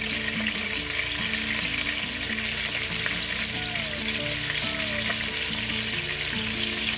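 Thin pork chops sizzling steadily as they fry in vegetable oil and plant butter in a skillet.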